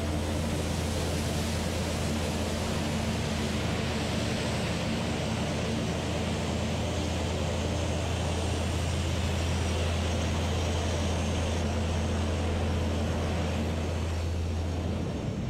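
Steady drone of a C-130 Hercules transport's four turboprop engines running, with a strong constant low hum underneath. The low hum cuts off near the end.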